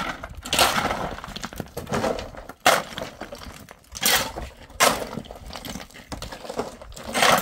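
Steel shovels scraping over hard ground and scooping broken stone rubble, the stones clattering and rattling in irregular strokes, with loads tipped into a metal wheelbarrow.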